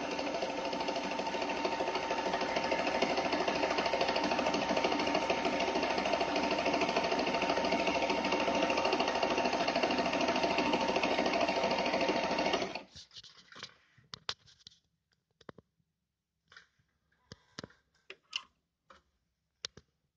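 Pfaff 294 sewing machine running steadily while stitching through fabric, then stopping abruptly about two-thirds of the way through; a few light clicks and taps follow.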